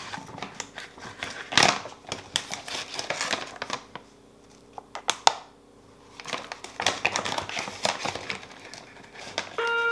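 Plastic protein-powder pouch crinkling and rustling as it is handled, with sharp clicks and knocks among the rustles. The loudest rustle comes about one and a half seconds in; it goes quieter for a couple of seconds around the middle, broken by one sharp click.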